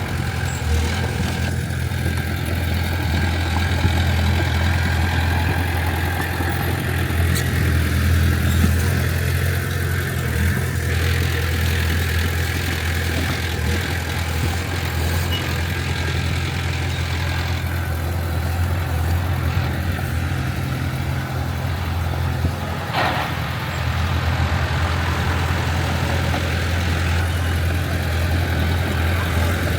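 Heavy diesel earthmoving machinery running steadily with a deep, even engine drone and a single short clank about three-quarters of the way through.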